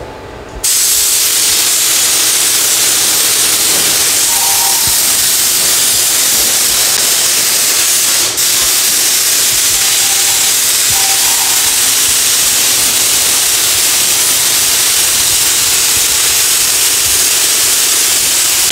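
Compressed-air gravity-feed paint spray gun spraying paint: a loud, steady hiss of atomising air that starts about half a second in and breaks off for a moment near the middle when the trigger is briefly let go.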